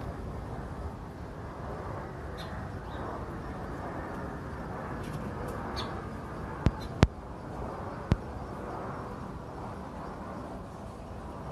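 Steady rumble of an aircraft passing overhead, with a few bird chirps and three sharp clicks about two-thirds of the way through.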